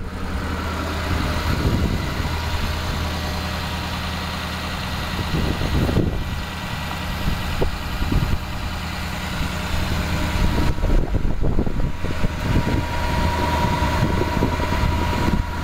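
A Ford F-450 Super Duty dump truck's engine idling steadily. A steady whine joins in about eleven seconds in.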